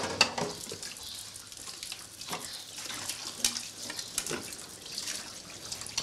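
Kitchen tap running into a sink as dishes are washed, with a few light clinks of dishes now and then.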